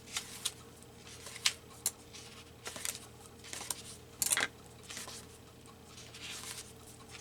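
Paper pages of a book being turned and handled, a string of short papery swishes and flicks, the loudest about four seconds in.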